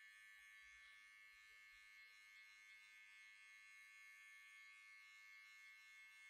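Faint, steady buzz of a barber's electric hair-cutting machine running.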